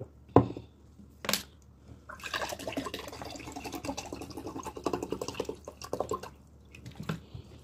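Two sharp knocks in the first second and a half, then about four seconds of rapid wet clicking and smacking from eating fufu and soup by hand, with one more click near the end.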